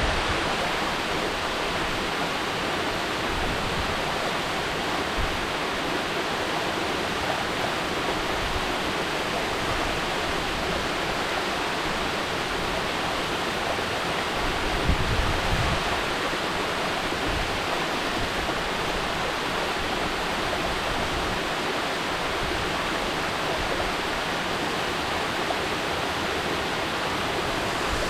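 Mountain waterfall rushing steadily, an even wash of falling water with no break, with a brief low rumble about halfway through.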